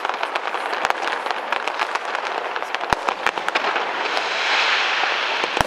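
Aerial fireworks going off: a dense, continuous crackle of small pops, with a few heavier bangs about three seconds in and again near the end.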